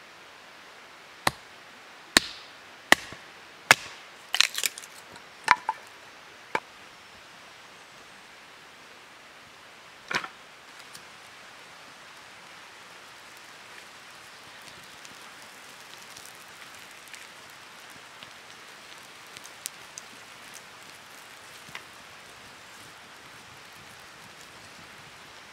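Hatchet chopping and splitting small pieces of wood into kindling: about seven sharp, separate strikes in the first seven seconds and one more near ten seconds in. After that come only faint rustling and a few small ticks.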